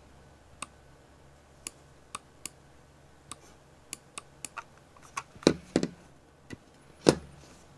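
The left mouse button of a G-Wolves Hati lightweight gaming mouse being clicked repeatedly: about a dozen sharp clicks at uneven spacing. Two heavier knocks come in the second half.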